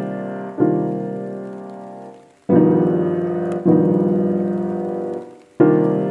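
Outro background music of sustained piano chords, each struck and slowly fading, the next coming about a second later, with short dips in the sound near the middle and the end.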